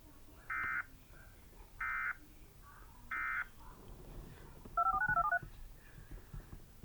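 Three short bursts of Emergency Alert System digital data tone, the end-of-message code, about a second and a quarter apart. About a second and a half later comes a quick run of touch-tone (DTMF) beeps.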